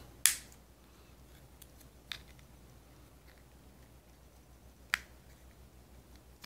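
Plastic key fob shell of a Honda Accord remote clicking as its halves are pried apart: a sharp snap just after the start, then two fainter clicks about two and five seconds in.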